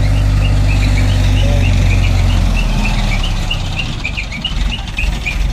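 Mobile crane's diesel engine running with a steady low drone that breaks into a rougher, uneven rumble about halfway through, with small birds chirping repeatedly throughout.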